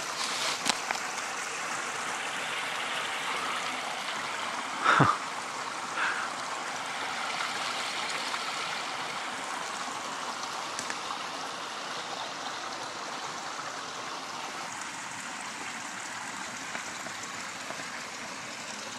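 Steady rushing of a flowing stream, with a short loud knock about five seconds in and a smaller one a second later.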